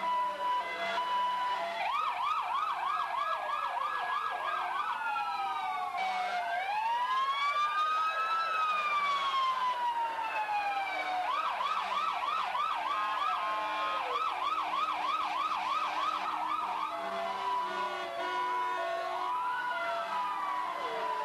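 Several emergency-vehicle sirens sounding at once: fast repeating yelps overlap with slow rising-and-falling wails, joined by a steady tone that cuts in and out.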